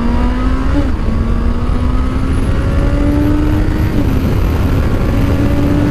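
Honda CBR650R's inline-four engine accelerating hard, its pitch rising through each gear with two brief upshifts, one just under a second in and one about four seconds in. Heavy wind rumble on the microphone at speed.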